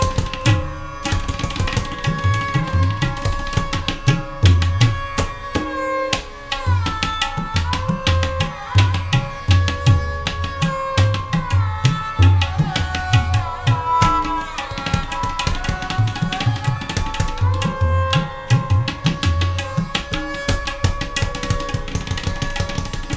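A music track with a busy, driving drum beat and sustained melodic lines that slide up and down in pitch.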